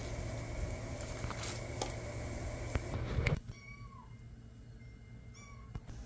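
Month-old kittens mewing: short, thin, high cries, two of them in the second half. Before them come a few sharp clicks and knocks over a rustling background, which stops abruptly about three and a half seconds in.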